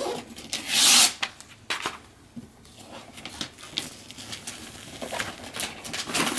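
Gift wrapping paper tearing and rustling as a child rips it off a boxed present, with a loud rip about a second in and shorter tears and crinkles after.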